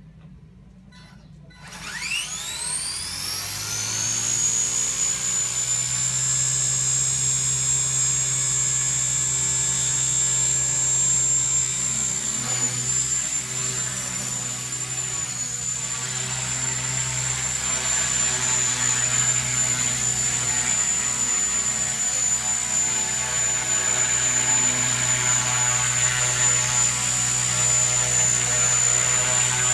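Radio-controlled model helicopter spooling up: a whine rises in pitch about two seconds in, then settles into a steady high whine over the drone of the rotor as it lifts off and flies.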